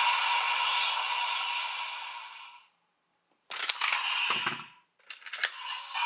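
Electronic sound effect from a Kamen Rider DX toy blaster fading out over the first two and a half seconds. After a short pause come sharp plastic clicks and clatter from the toy's mechanism being worked, with one dull knock in the middle.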